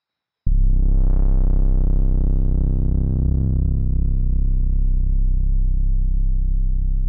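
Deep, pulsing synthesizer drone that cuts in suddenly about half a second in and holds steady, its upper part slowly fading.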